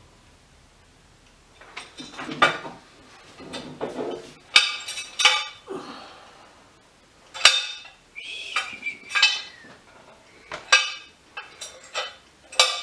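Metal parts of a hydraulic strut spring compressor being handled and set down on a workbench during assembly: scattered sharp metallic clinks, several ringing briefly, among softer knocks and handling noises.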